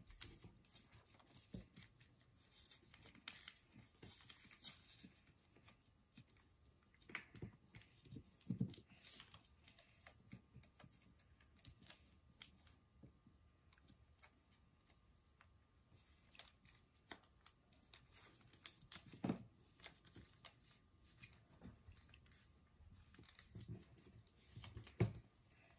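Faint, irregular crinkles and clicks of origami paper being folded and creased by hand against a tabletop, with a few soft thumps.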